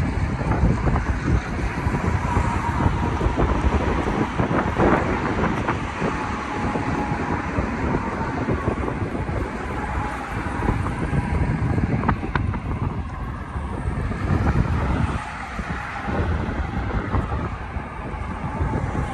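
Wind buffeting the microphone over city street traffic, a steady low rumble, with a faint steady tone and a couple of brief clicks.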